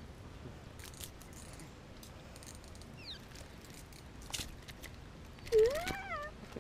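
Faint rustling and scattered small clicks as a clump of pond weed is pulled off a fishing line with a hooked bass in it. Near the end a short high-pitched call rises and then falls in pitch, the loudest sound here.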